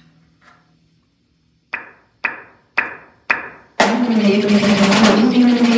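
A low electronic tone fades out in the first second, then a snare drum is struck four times, sharply and evenly about half a second apart. About two-thirds of the way through, a loud snare drum roll begins, with a low wavering tone from the electronic playback beneath it.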